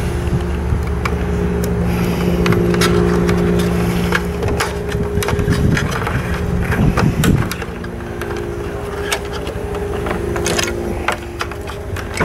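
Wires being handled and pushed through a rubber grommet into a metal junction box: rustling and light clicks over a steady mechanical hum.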